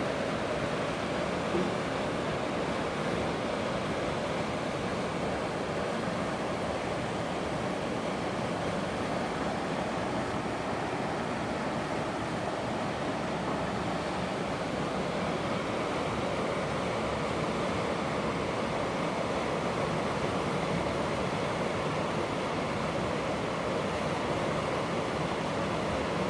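Storm: steady heavy rain and wind, an even unbroken rush with no thunderclaps.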